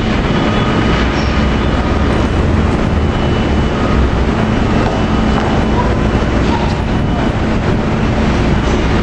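Steady, loud din of industrial plant machinery running, a continuous rumble with a low hum and faint steady whine.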